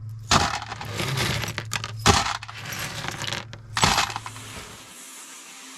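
Clinking and clattering of small hard objects, with three sharp clinks about a second and a half apart. A steady low hum runs underneath and cuts off about five seconds in.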